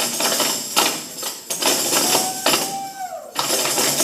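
Tambourines jangling, shaken and struck in irregular bursts. A brief high tone sounds and falls away between about two and three seconds in.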